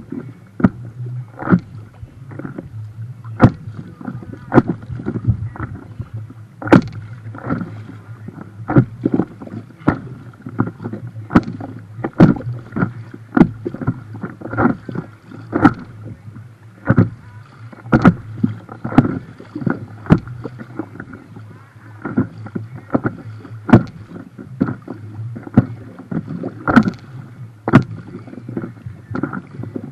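River water slapping against a floating boat's hull close to the microphone. The slaps come sharp and irregular, about once or twice a second, over a steady low background.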